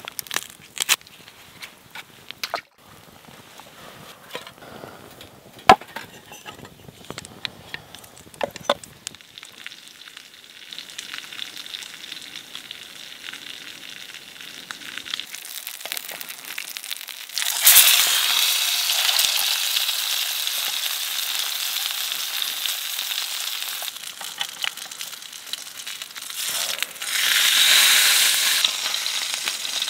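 Small clicks and knocks over a crackling wood fire, then about two-thirds of the way in a sudden loud sizzle as fish goes into hot oil in a frying pan on a small wood-burning stove. The frying carries on steadily and swells louder again near the end.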